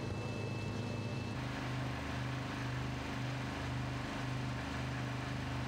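A heavy engine running steadily, a low hum with a slow, even pulse. About a second in, a cut switches to a slightly different engine sound.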